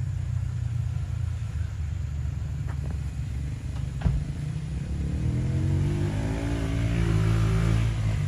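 Jeep engine running at a low crawl over a rutted dirt mound, then revving up from about halfway through as it takes the climb, the pitch easing back near the end. A single knock about four seconds in.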